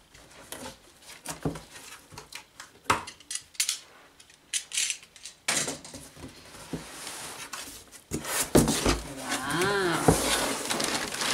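Large corrugated cardboard box being opened by hand: scattered rustles and taps at first, then the flaps are pulled open with louder scraping and sharp knocks. A short squeak comes near the end.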